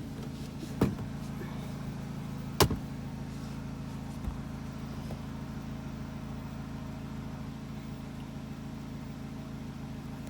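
Nissan Sentra's 2.0-litre four-cylinder idling steadily, heard from inside the cabin, with a few sharp clicks in the first three seconds. The engine is running lean at idle with a P0171 code, which the mechanic takes for a large vacuum leak.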